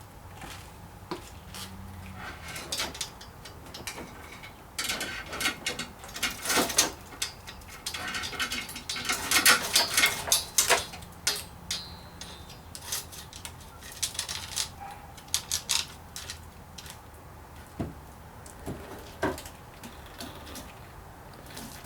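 Loose metal clinking and rattling, many quick clicks and jangles, busiest in the middle, as a saw chain is handled and fitted onto a long chainsaw bar.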